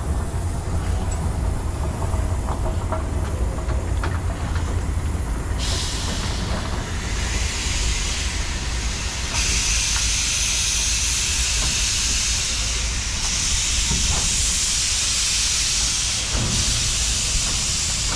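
Steam locomotive venting steam. A loud hiss starts suddenly about six seconds in, grows louder a few seconds later and cuts off sharply near the end, over a steady low rumble.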